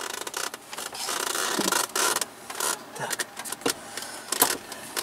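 Irregular scraping and rustling with sharp clicks and knocks, as a car's dashboard panel is pushed and worked into place by hand. A longer scraping stretch comes about a second in, and separate knocks follow later.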